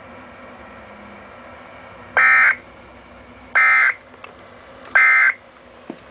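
NOAA Weather Radio SAME end-of-message code: three short, loud bursts of data tones, about a third of a second each and about a second and a half apart, over a faint receiver hiss. The bursts mark the close of the weekly alarm test before regular programming resumes.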